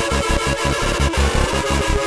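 Background electronic music with a fast, steady pulsing beat.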